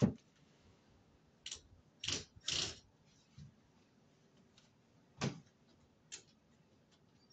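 A handful of short scrapes and knocks from hands and tools working on a window frame, spaced out with quiet between them; two slightly longer scrapes come about two seconds in.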